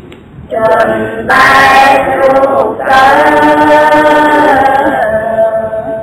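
Group of voices chanting Buddhist verses in Pali in unison, drawing each syllable out into long held notes, with a short break about three seconds in.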